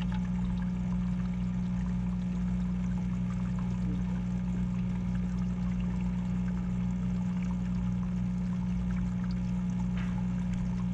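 Parts washer's electric pump running with a steady hum while its nozzle pours a continuous stream of cleaning fluid splashing onto the tub's tray.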